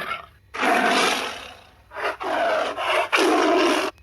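Tiger roaring: one long rough roar followed by a few shorter roars.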